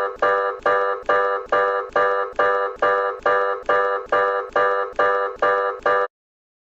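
Electronic emergency alert tone repeating about twice a second. Each beep is a chord-like tone that starts sharply and fades, and the beeps stop abruptly about six seconds in.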